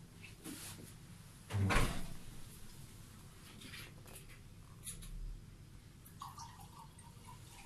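A dull bump about two seconds in and a few faint clicks over a quiet room's low hum, with a faint high tone near the end.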